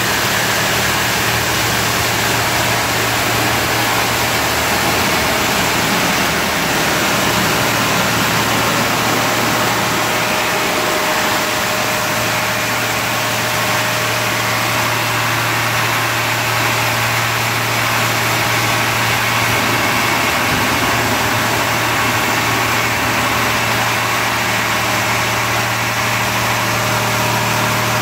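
Robowash touchless car wash in its high-pressure wash: water jets from the gantry blasting against a car with a loud, steady hiss over a steady low machine hum.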